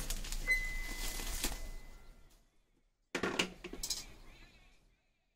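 Metal parts of a power weeder clinking and knocking as they are handled, one strike leaving a brief ringing tone. After a short dead silence comes a second burst of clinks that dies away.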